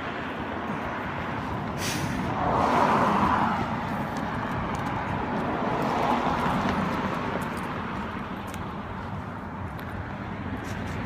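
Cars passing on a street, their tyre and engine noise swelling and fading, loudest about three seconds in and again about six seconds in.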